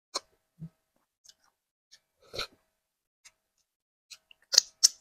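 Mouth sounds of eating fufu and vegetable soup by hand: a few separate smacks and clicks of chewing and swallowing, the loudest two close together near the end.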